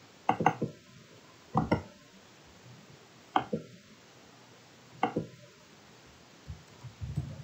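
Computer mouse double-clicked four times, sharp click pairs about a second and a half apart, with a few softer low knocks near the end.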